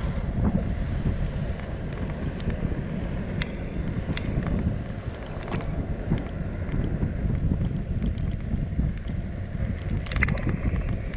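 A steady low rumble with wind buffeting the microphone, and a few scattered sharp clicks.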